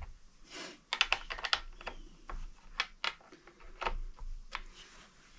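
Husqvarna Rancher 455 saw chain clicking against its bar as it is worked by hand to check the tension: a string of sharp, irregular metallic clicks, some in quick clusters.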